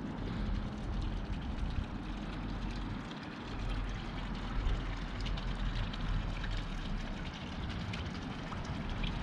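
Steady outdoor background noise with a low rumble and a few faint ticks.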